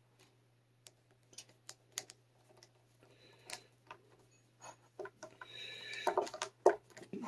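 Faint, scattered light clicks and ticks of a metal tool and small hardware being handled at an electric guitar's headstock while a string tree is fitted, getting busier with a short scrape about five to six seconds in.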